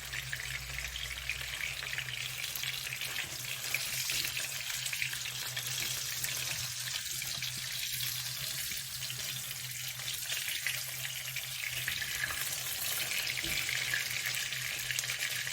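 Sliced onion, ginger and garlic frying in hot oil in a pan: a steady crackling sizzle.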